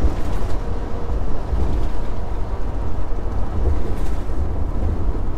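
Steady low rumble of a semi-truck's diesel engine and tyre and road noise, heard inside the cab while cruising on the highway.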